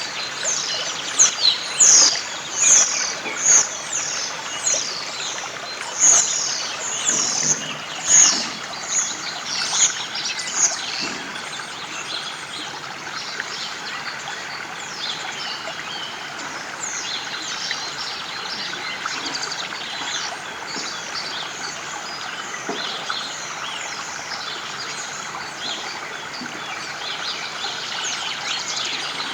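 Songbirds chirping in quick falling notes over the steady rush of a river, with a loud run of chirps in the first ten seconds or so that then gives way to fainter calls.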